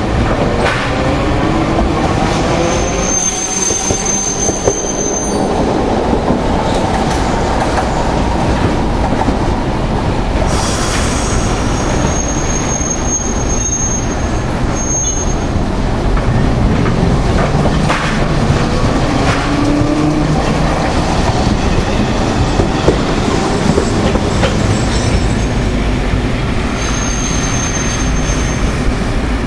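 Nagasaki streetcars rolling through a curved track junction: steel wheels squeal high and steady on the curves in several short spells, over a continuous rumble and clatter of wheels on the rails.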